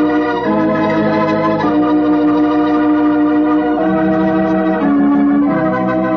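Organ music bridge: a slow series of held chords, changing five or so times.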